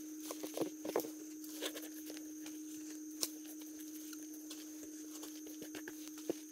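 Scattered soft taps and clicks of hands handling and salting a split, gutted fish on a styrofoam box, over a steady hum.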